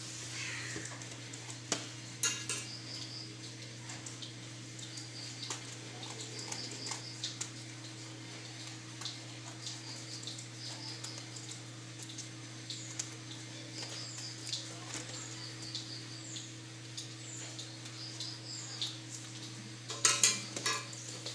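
Scissors cutting paper and paper being handled: scattered sharp snips and rustles as wrapping paper is trimmed along a book's edge, with a loud cluster of snips near the end. A steady low hum runs underneath.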